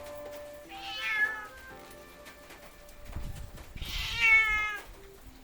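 Domestic cat meowing twice, a short call about a second in and a longer, louder one about four seconds in; the cat is asking for a churu treat. Soft background music underneath.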